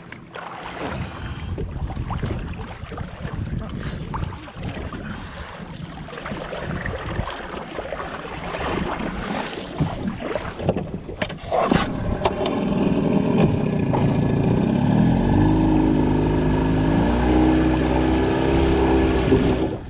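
Wind on the microphone and water around a boat. About twelve seconds in, a motorboat engine rises in pitch and runs steadily, shifting pitch once a few seconds later.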